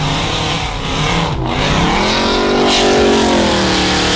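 A pickup truck's engine revving hard under load as the truck pushes through deep snow. The pitch climbs about a second and a half in, then holds at high revs.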